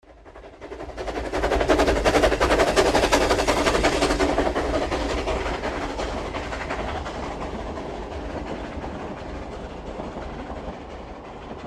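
Steam train sound effect: a fast, rhythmic clatter that swells up within the first two seconds, then slowly dies away.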